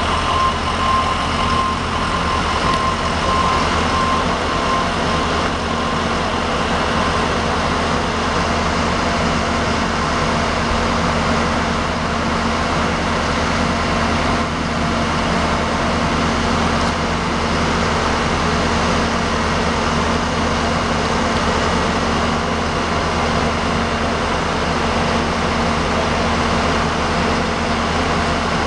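Heavy truck engine idling with a steady low hum. A reversing beeper beeps for the first five seconds or so, then stops.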